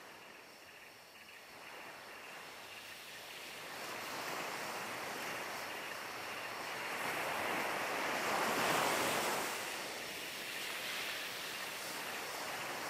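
Steady rush of hot-spring water pouring from a spout in a stone wall, growing louder toward the middle and easing slightly after.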